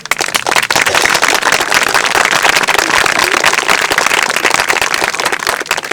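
Audience applauding: a few scattered claps build within the first half second into steady dense clapping, which thins out near the end.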